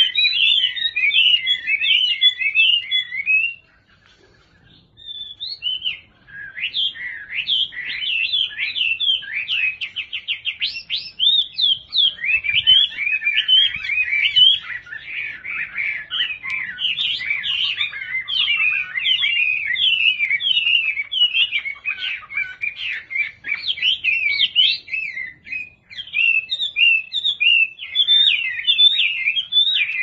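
Chinese hwamei (Garrulax canorus) singing a long, loud song of fast, varied whistled phrases, with a short pause about four seconds in and a rapid trill around ten seconds in.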